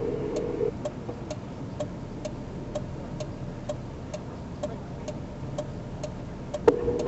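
A vehicle's turn-signal or hazard flasher clicking steadily, about two clicks a second, over a low steady hum.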